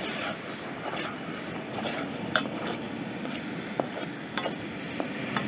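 Metal spoon stirring simmering tomato-and-pepper stew in a chipped enamel pot over a campfire, with a steady bubbling hiss. The spoon clinks sharply against the pot several times.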